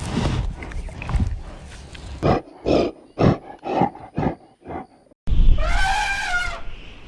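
Large wild animal calls: a rough, noisy call, then a run of about seven short grunts, about two a second. After an abrupt cut comes a loud pitched call that rises and falls.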